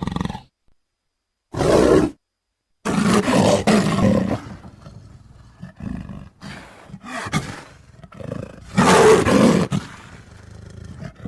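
Leopard calling in a series of rough, throaty roars: a short one about two seconds in, a longer one a second later, several shorter ones, and the loudest about nine seconds in.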